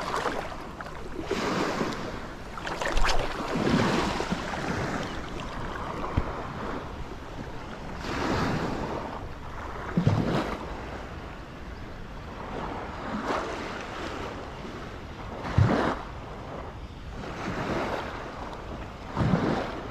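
Wind buffeting the microphone over shallow water sloshing and lapping, swelling and easing in irregular surges every few seconds.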